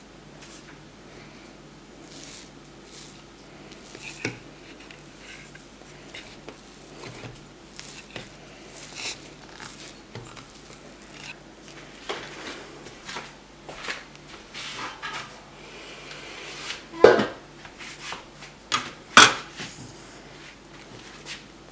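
Hands punching down and kneading risen ladi pav dough in a stainless steel bowl: soft squishing with scattered knocks and scrapes against the metal. Two louder thuds come towards the end.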